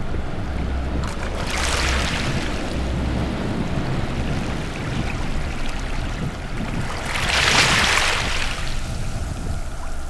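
Sea surf in wind: a steady low rumble, with waves washing in with a hiss about a second and a half in and again near eight seconds.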